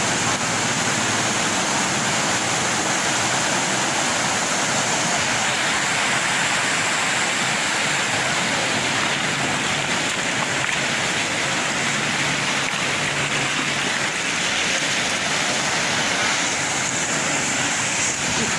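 Steady rushing noise like running water, unbroken throughout, with a faint low hum beneath it.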